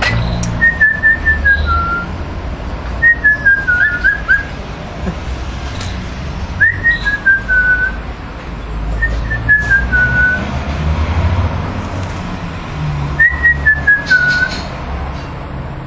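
A short whistled phrase of four or five notes stepping down in pitch, repeated five times about every three seconds, over a low steady rumble.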